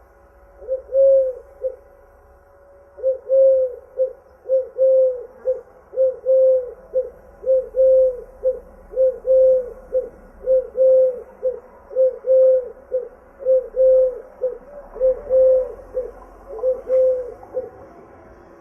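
A dove cooing: a long, regular series of short coos, about one every three quarters of a second, with a pause of about two seconds near the start.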